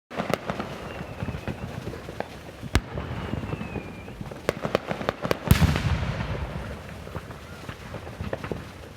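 Fireworks going off: a rapid scatter of sharp pops and bangs, with the loudest blast about five and a half seconds in trailing a long rumbling echo. A couple of faint falling whistles can be heard among them.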